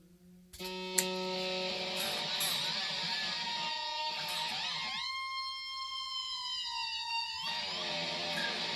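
Electric guitar playing effect sounds through an effects unit. A sharp picked attack comes about a second in and rings on, then a note swoops up into a long held tone about five seconds in and slides down in pitch at about seven and a half seconds.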